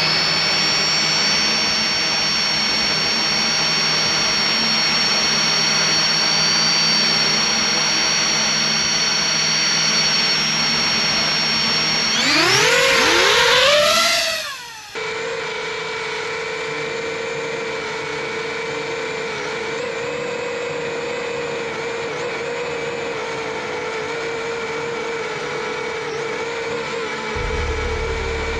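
DJI FPV quadcopter's four motors and Gemfan Hurricane 5536 three-blade props spinning with a steady high whine, then rising in pitch and getting louder about twelve seconds in as it throttles up and lifts off. The sound cuts off suddenly a few seconds later and gives way to a steadier, lower propeller drone of the drone in flight.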